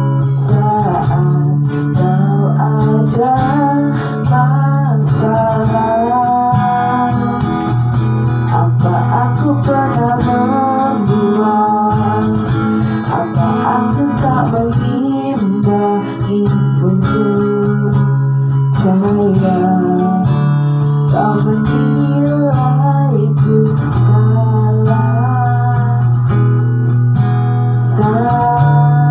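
A woman singing a song into a microphone over a guitar accompaniment, her melody gliding and bending over steady low chords.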